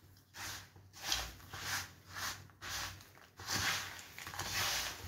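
Steel spoon stirring and scraping through roasted sesame seeds and peanuts in a metal pan, mixing in jaggery syrup: repeated rustling, scraping strokes, roughly one or two a second.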